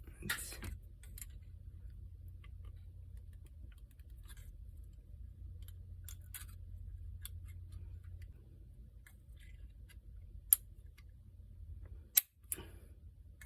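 Light, scattered clicks and taps of small hand tools and carburetor parts being worked on a bench, over a steady low hum. There are two sharper clicks near the end.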